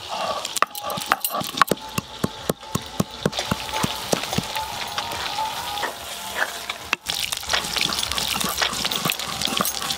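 Hot oil sizzling and crackling with many sharp ticks as whole spices fry in it, with a spatula stirring in the pot.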